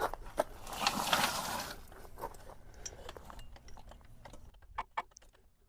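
Floor jack being handled under a truck frame: a brief scraping noise in the first couple of seconds, then scattered light metallic clicks and rattles, several close together near the end.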